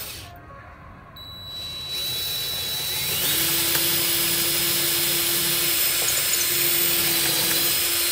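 Cordless drill boring into a pine block. The motor drops off just at the start, spins up again about a second in, and runs steadily under load.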